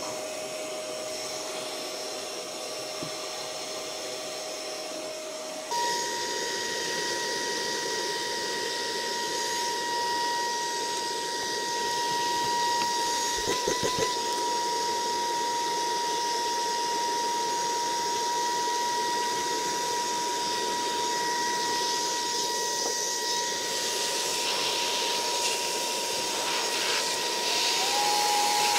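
Handheld electric vacuum running steadily with a motor whine over a hiss of moving air while it sucks dust off a laptop's heatsink and motherboard. About six seconds in, the whine steps up in pitch and gets louder. A few light knocks come around the middle, and the pitch dips slightly near the end.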